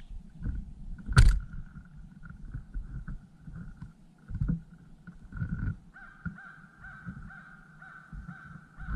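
Crows cawing, steadier and more continuous in the last few seconds, over low rumbling thumps. A single sharp knock about a second in.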